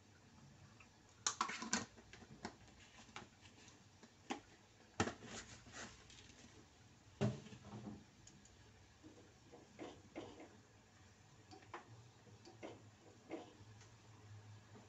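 Scattered light clicks and knocks of kitchen things being handled and set down, a small cluster about a second in and single ones every second or two after, over a faint steady background.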